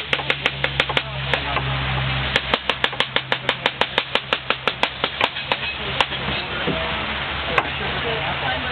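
Kitchen knife chopping peeled apple pieces on a cutting board: fast, regular strokes about five a second in two runs, then a few single chops.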